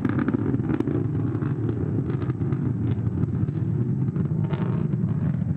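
Steady low rumble of a Falcon 9 first stage's landing burn: its single center Merlin 1D engine firing as the booster descends to land.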